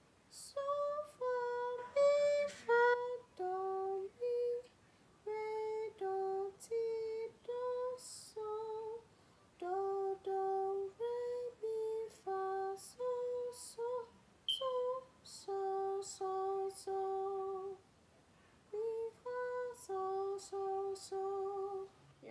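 A woman singing a sight-singing exercise unaccompanied in solfège, one short, separate note after another, with brief pauses between phrases.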